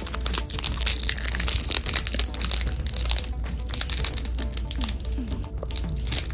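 Foil wrapper of a Pokémon trading card booster pack being torn open and handled, a continuous run of crinkling and crackling rustles.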